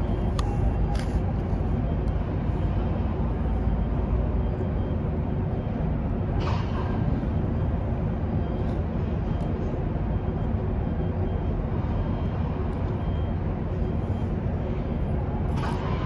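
Steady city traffic rumble, with a short hiss about six and a half seconds in and again near the end.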